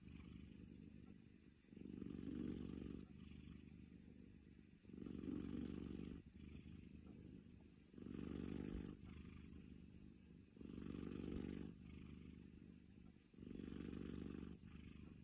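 Chartreux cat snoring while dozing off: a quiet, low snore that swells on each breath for about a second, roughly every three seconds, and sinks back in between.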